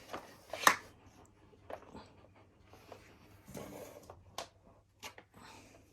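Hard plastic parts of a wet and dry vacuum being handled: a few scattered sharp clicks and knocks, with a short rustle about midway.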